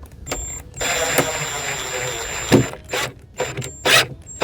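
Power drill driving a screw into a wooden board: a short burst, then a steady run of about two seconds with a high whine, its pitch sinking slowly as the screw bites. It ends in several short trigger bursts as the screw is snugged down.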